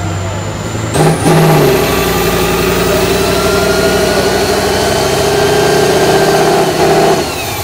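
Tatra 6x6 trial truck's diesel engine revving hard about a second in and held at high revs under heavy load as it climbs a steep muddy slope, pouring black smoke. A high whine climbs alongside, and the revs drop away near the end.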